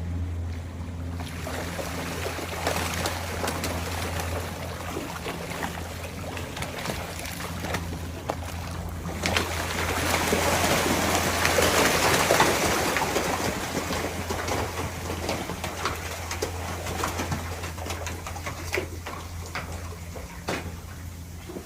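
Water splashing and churning at the surface, over a steady low motor hum; the splashing builds to its loudest around the middle and then fades.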